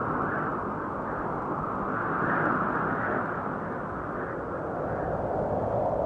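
Muffled steady whir of a DJI Phantom 1 quadcopter's propellers and motors, heard from the GoPro mounted on it, with wind noise mixed in. It swells a little about two to three seconds in, then eases.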